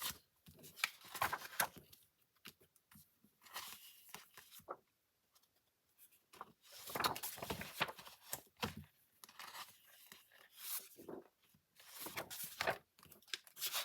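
Sheets of patterned craft paper rustling and crinkling as they are flipped through and handled, in irregular bursts with short pauses.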